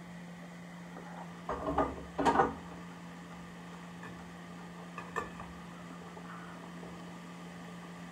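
Mixed vegetables cooking on high heat in a stainless steel pot, a faint sizzle under a steady low hum. A short burst of clattering knocks comes about two seconds in, and a couple of smaller knocks about five seconds in.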